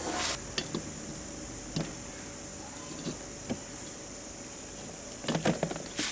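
Light metallic clicks and knocks of an air compressor pump being put back together, as the finned cylinder is fitted down over the piston, with a cluster of knocks about five seconds in.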